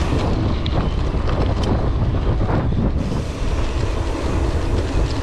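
Wind buffeting the microphone of a camera on a moving mountain bike, a loud, steady rumble.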